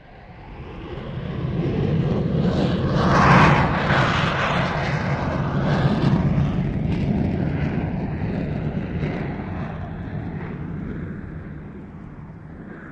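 Roar of the PSLV rocket's solid-fuel first-stage motors during ascent. It swells over the first two seconds, is loudest about three and a half seconds in, then slowly fades as the rocket climbs away.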